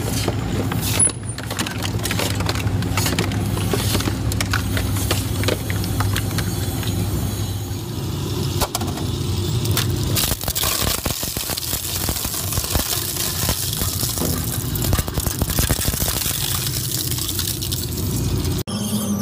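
Industrial twin-shaft shredder running with a steady motor hum, its rotating cutter blades crunching plastic oil jugs and a metal plate with many sharp, irregular cracks and snaps.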